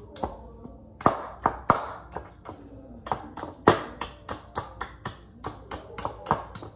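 A series of sharp knocks and taps from hand demolition work on wooden closet boards and trim. They are spaced out at first, then come about three or four a second from about halfway through.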